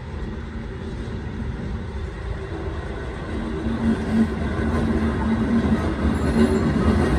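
A pair of coupled orange electric locomotives of the Kurobe Gorge Railway rolling closer on narrow-gauge track. The rumble of wheels on rail grows steadily louder, a low motor hum joins about halfway, and there is a brief high squeak about six seconds in.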